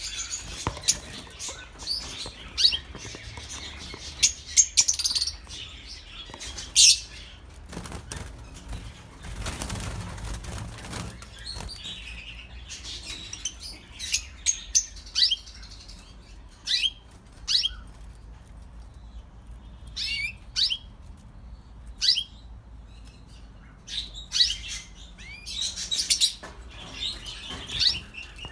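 Masked lovebirds chirping in short, sharp calls scattered throughout, with wing flapping.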